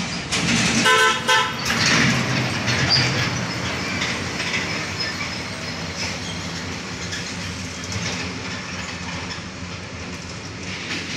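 A vehicle horn toots once, briefly, about a second in, over the sound of heavy trucks passing close by, their engines and tyres running. The traffic noise is loudest in the first few seconds, then fades as the trucks move off round the bend.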